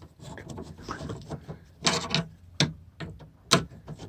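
Sharp clicks and knocks of hand tools prising at small trim clips on a van's front panel, the three loudest about two, two and a half and three and a half seconds in.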